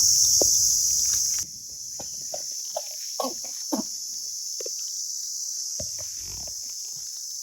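Steady high-pitched insect drone, cicadas or crickets, which drops suddenly in level about a second and a half in, with a few short chirping animal calls over it in the middle.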